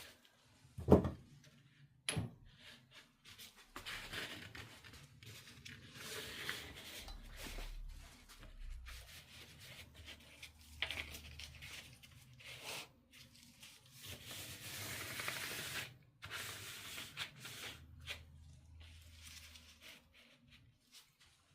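Pleated fuel-filter paper being handled and pressed flat on a surface, rustling and scraping, with a sharp knock about a second in and a smaller one soon after.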